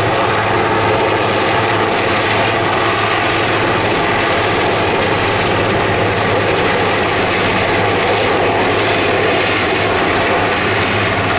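Large firefighting helicopter flying overhead with a bucket slung on a long line: loud, steady rotor and turbine noise with a low hum underneath.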